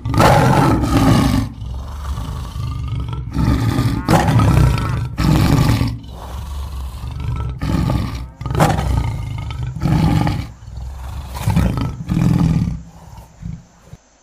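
Recorded big-cat roars and growls, one after another, about a dozen in all, fading out near the end.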